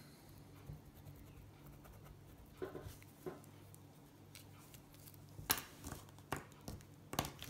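Pen scratching lightly on paper as a line is drawn, then several sharp clicks in the last two seconds as pens are handled, put down and picked up, over a low steady hum.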